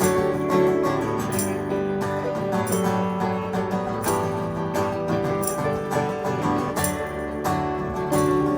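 Live folk band playing an instrumental intro: strummed acoustic guitar with electric slide guitar and light percussion keeping a steady beat.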